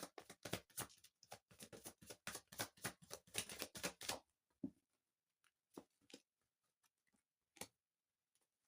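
Tarot cards being shuffled by hand: a quick, dense run of soft card flicks and slaps for about four seconds, then a few separate taps.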